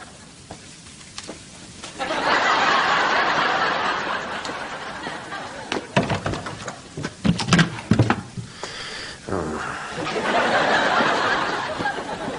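Studio audience laughing in two waves, with a cluster of sharp knocks and thumps in between.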